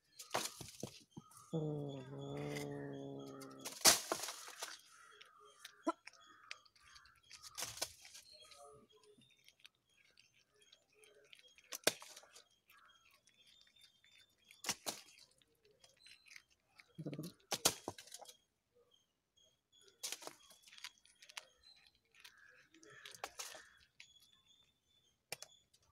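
A kitten chewing and crunching a lizard, with sharp crunching clicks scattered throughout. About two seconds in it gives a low, drawn-out growling call lasting about two seconds, and a short low call comes later.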